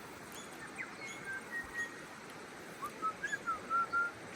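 A bird singing in the bush: a loose series of short, clear whistled notes, some slurring up or down, coming faster about three seconds in.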